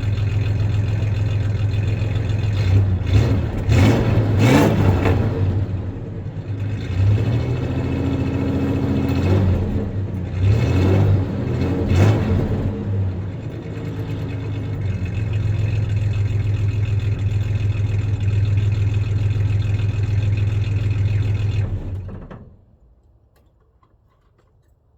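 1993 Ford Ranger's 3.0-litre V6 idling with a slight misfire, revved in two short bursts about 3 and 10 seconds in, then falling back to idle. The engine cuts off suddenly about 22 seconds in.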